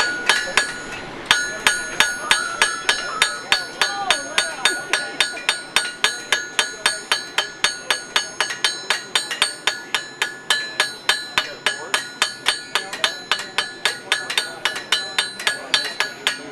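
Blacksmith's hammer striking hot mild steel on an anvil in a steady rhythm of about four ringing blows a second, drawing the bar out into a tapered square. There is a short break about a second in.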